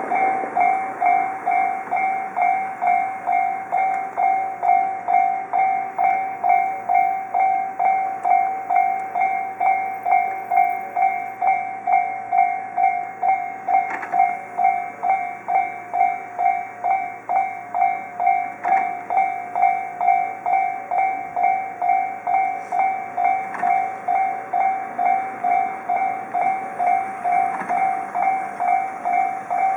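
Railroad crossing warning bell ringing at a steady rhythm of about two strokes a second, each stroke a bright decaying tone. It starts abruptly, the signal that a train is approaching the crossing.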